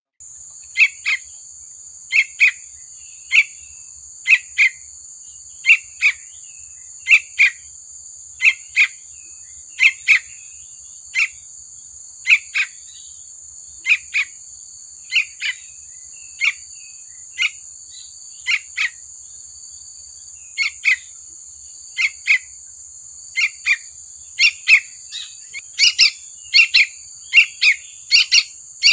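Young yellow-vented bulbul (trucukan) calling: short sharp calls, mostly in pairs, about one pair every second and a half. The calls come faster and louder over the last few seconds. Underneath runs a steady high insect-like drone.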